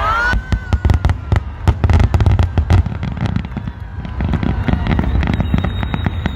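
Fireworks going off in quick succession: a rapid run of sharp cracks and bangs over a low rumble, densest in the first half.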